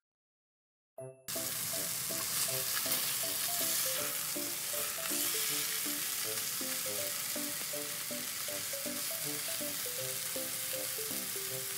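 After about a second of silence, chicken breast sizzling as it fries in a nonstick frying pan, over light background music with a simple repeating melody.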